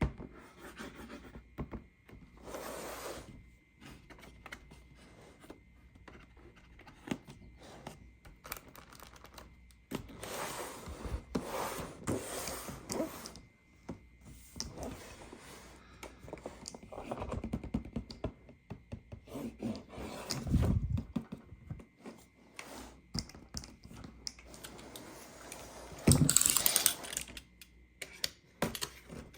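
Hands handling a plastic toy playset and its packaging: irregular clicks, taps and scrapes of plastic parts, with a louder rustle of packaging near the end.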